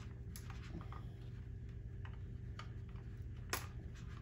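A handful of small sharp clicks and taps as wire connectors are pushed onto the terminals of a freeze dryer's relay board, the loudest about three and a half seconds in, over a faint steady hum.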